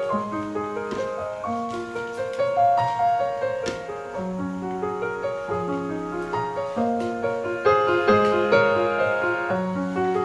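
Background piano music: a gentle flowing melody of overlapping single notes and chords.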